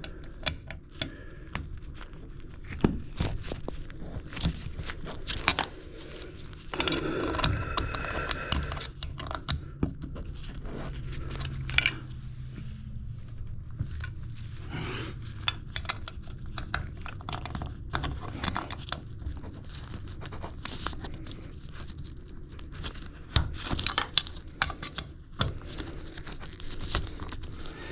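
Hand work on a tub diverter handle: scattered clicks, taps and scrapes of a small tool and metal parts. A longer rustling, tearing stretch comes about seven to nine and a half seconds in.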